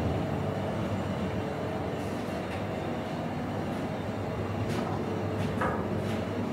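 Steady low rumbling hum with no speech, and a couple of faint clicks about five seconds in.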